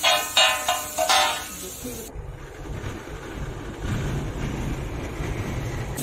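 Steel spatula striking a large flat iron griddle while stir-frying noodles: four ringing metallic clangs in the first second and a half. After that, a low steady rumble.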